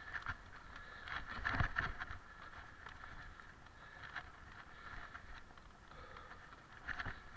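Mountain bike rolling over a rough forest dirt singletrack: tyre noise and a steady rattle of the bike over roots and stones, with louder jolts about one and a half seconds in and again near the end.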